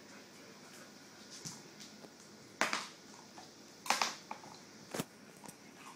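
A few short scuffs and clicks from dogs moving about on a tiled floor, the loudest about two and a half, four and five seconds in.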